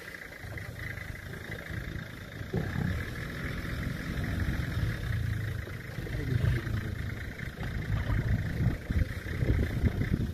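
Lions growling as they feed together on a kill, low rumbling growls rising and falling in uneven bouts, louder near the end.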